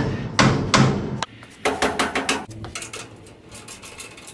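Hand ratchet wrench clicking in quick runs as it works a nut on a perch pin of a Model A front axle, starting about a second in.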